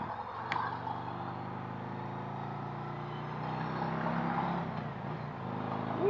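Harley-Davidson Road Glide's Milwaukee-Eight 117 V-twin running steadily on the move, with road and wind noise.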